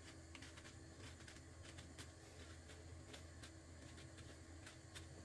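Near silence: a low steady hum with faint, irregular small clicks.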